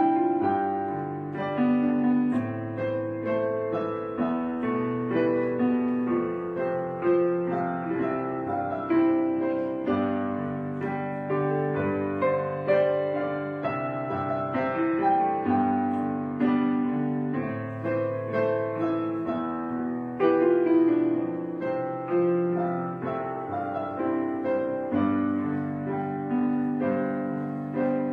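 Solo piano music, a steady run of struck notes that ring and fade.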